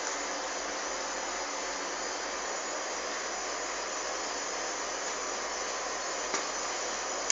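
Steady, even machine whoosh like a running fan, with a faint knock about six seconds in.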